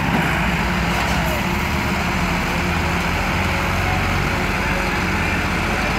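Massey Ferguson 385 tractor's diesel engine running steadily under heavy load, pulling a brick-laden trolley.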